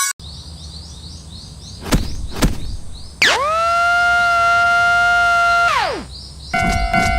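Cartoon warning-signal sound effects over faint repeating chirps. After two clicks, a siren-like tone sweeps up, holds steady for about two and a half seconds and slides back down. Near the end a steady electronic alarm tone starts.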